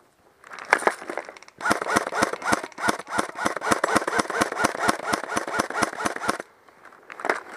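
Airsoft rifle firing at close range: a short burst, then a long, even string of shots at about seven a second for nearly five seconds, then another short burst near the end.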